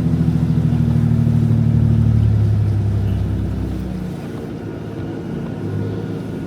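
Jeep Gladiator's 3.0 EcoDiesel V6 running steadily under way off-road, its note fading and getting rougher after about three seconds.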